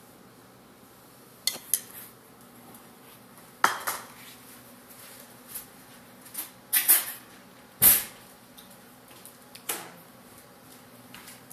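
Dishes and metal cutlery being handled on a kitchen counter: a dozen or so irregular clinks and knocks, the loudest about eight seconds in.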